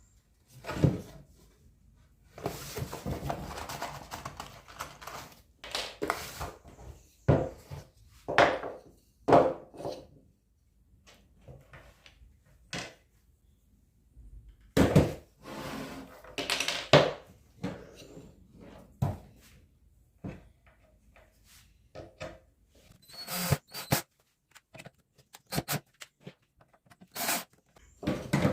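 Wooden knocks and thuds of boards and hand tools being picked up and set down on a workbench, with a few longer scraping or rubbing stretches, in a small room.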